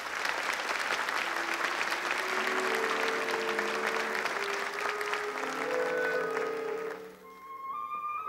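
Theatre audience applauding over an orchestra holding sustained chords; the clapping dies away about seven seconds in, leaving the orchestra, with a higher melody line entering near the end.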